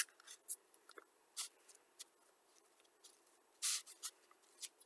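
Icing being spread over a waffle with a utensil: short, scattered scrapes and rubs, a few standing out louder.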